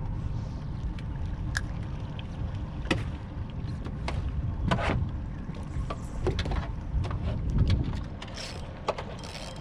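Water lapping and slapping against the hull of a small fishing boat over a steady low rumble, with scattered small clicks and splashes.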